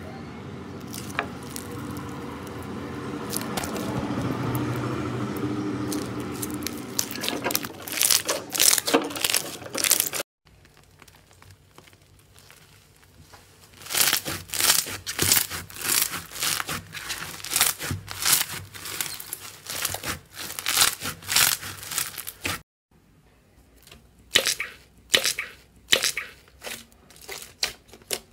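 Slime being squeezed, poked and stretched by hand, making sticky crackles and quick irregular clicks and pops. It comes in several separate takes: a denser crackling stretch, a short near-quiet gap, then runs of sharp popping clicks.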